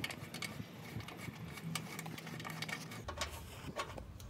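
Faint scattered plastic clicks and scraping as fingers work a stiff quick-connect fitting on the evap hose of a Jeep Wrangler.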